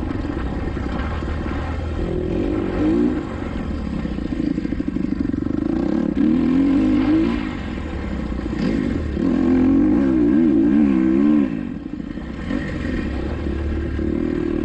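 Kawasaki KX250XC four-stroke single-cylinder dirt bike engine revving hard on and off the throttle, its pitch climbing and dropping again and again as it runs through the gears. The sound eases briefly about three, eight and twelve seconds in.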